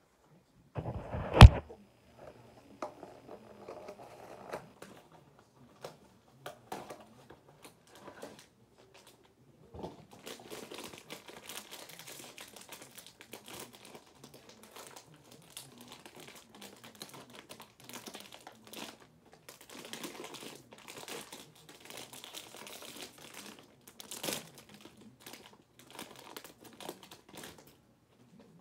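A single loud knock about a second in, then the crinkling, rustling and tearing of a mystery box's packaging being opened by hand. The rustling grows dense and continuous from about a third of the way through.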